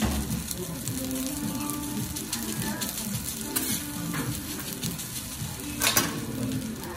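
Garlic rice sizzling on a teppanyaki steel griddle as a metal spatula chops and presses it, with scraping and sharp clacks of the blade on the plate; the loudest clack comes about six seconds in.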